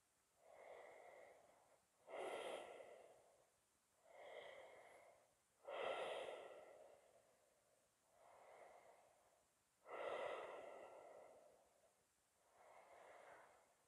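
A man's slow, deep breathing, close to the microphone while he holds a yoga forward bend: about seven breaths, each roughly a second long, coming every two seconds or so.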